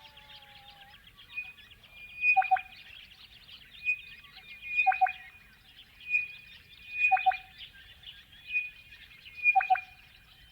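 Crested bellbird singing: a phrase repeated four times, about every two and a half seconds, each a high ringing note ending in two deep, liquid cow-bell-like notes. A constant high chatter runs behind it.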